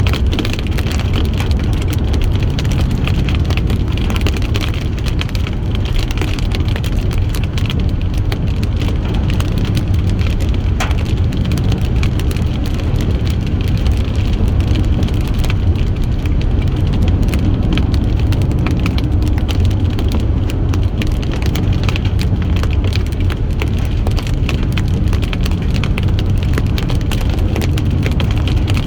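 A car's road noise while driving: a steady low rumble with an even hiss over it.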